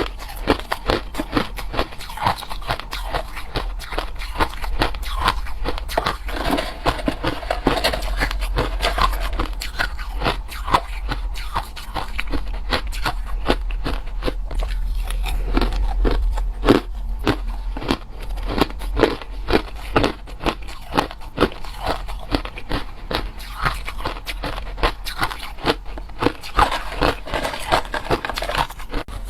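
Ice being chewed close to the microphone: rapid, continuous crunching, with a steady low hum underneath.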